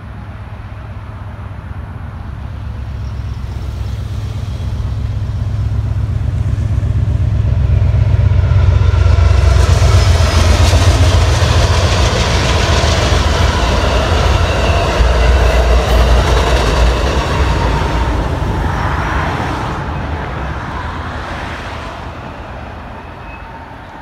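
Amtrak passenger train crossing a steel girder bridge: the rumble builds over several seconds and peaks as the cars roll over the bridge. About two-thirds in, the deep rumble drops away, leaving wheel and rail noise that fades as the train moves off.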